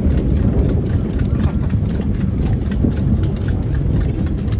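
Hooves of a horse pulling a passenger cart, clip-clopping in a steady rhythm on a paved road over a constant low rumble.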